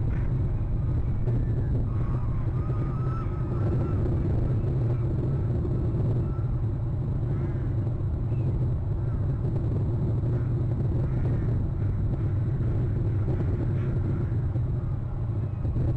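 Faint, high chirping calls of bald eagles in short scattered series, over a steady low rumble.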